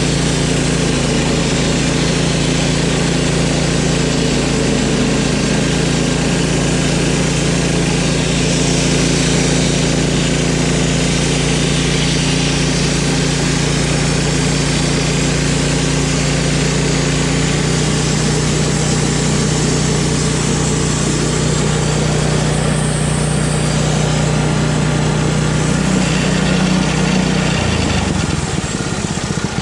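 Wood-Mizer LT10 bandsaw mill running steadily as its freshly changed band blade cuts through a log. The engine note shifts about two-thirds of the way through and drops lower near the end.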